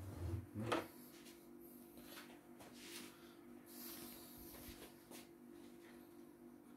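Plastic embroidery unit of a CNY E900 embroidery machine being handled and set down on a wooden table: one knock a little under a second in, then a few faint taps over a faint steady hum.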